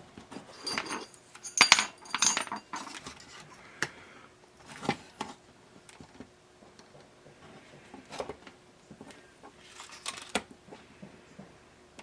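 Small metal parts and tools being handled on a workbench: scattered clicks, clinks and light knocks, the loudest cluster in the first couple of seconds, then single knocks spaced a few seconds apart.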